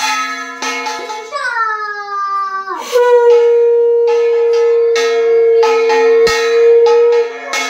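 A conch shell (shankha) blown in one long blast that starts about a second and a half in, slides down in pitch, then holds a loud steady tone for about four seconds. A bell rings with repeated strikes throughout.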